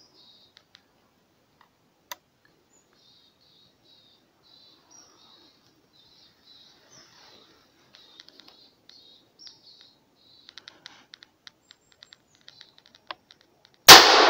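Faint, high, thin whistles and a few soft clicks, then near the end a single loud shotgun shot whose report rings off and dies away slowly through the forest.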